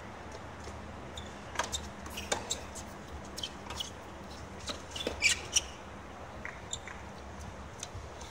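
Tennis ball being struck during a rally: a handful of sharp pops from racket hits over about four seconds, the loudest a little past the middle.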